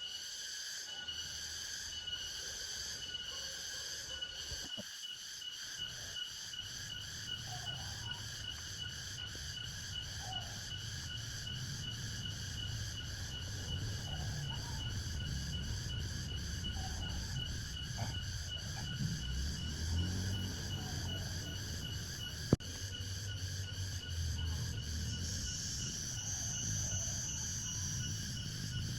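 Forest insect chorus, a steady fast pulsing trill at several pitches, over a low rumble that grows stronger after the first few seconds. There is a single sharp click about 22 seconds in.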